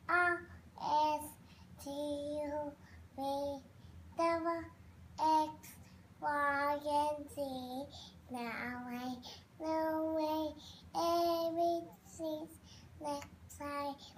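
A young child singing in short phrases of a second or less with pauses between, mostly on held notes, with one rising swoop about eight seconds in.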